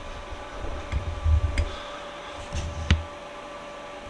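Hand tool scratching and picking old paint and rust out of an Erie 102½ bench vise: irregular low knocks and a few sharp metal clicks over a steady faint hum.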